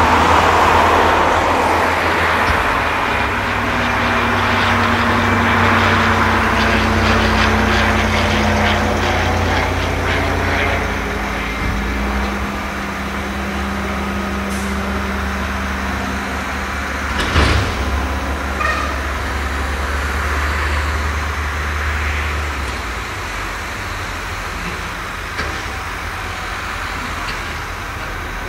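Diesel tractor engines running steadily as a tipping trailer pulls away from a maize silage clamp and tractors work the pile, with a single sharp knock about 17 seconds in. The deep drone drops away a few seconds before the end.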